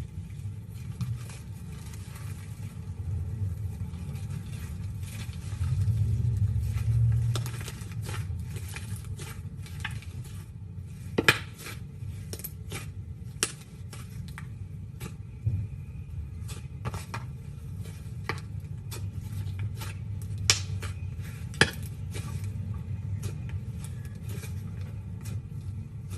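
Slime being poked and squeezed: many small clicks and pops over a steady low hum, with a few sharper, louder clicks.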